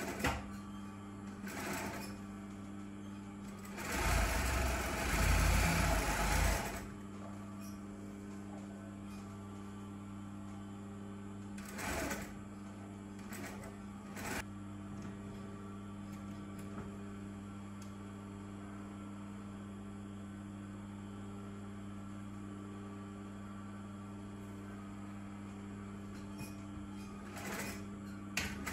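Industrial flat-bed sewing machine running a short stitching burst through satin fabric about four seconds in, lasting under three seconds, over a steady motor hum. A few short clicks and knocks from the machine and fabric handling come here and there.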